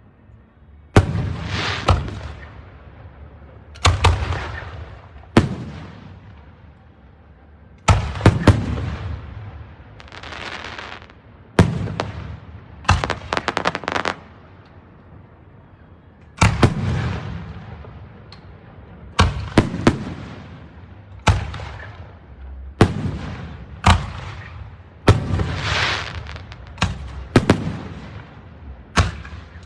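Aerial fireworks shells bursting one after another, a sharp bang every second or two, each trailing off in a rolling rumble and crackle. About halfway through comes a quick cluster of rapid pops.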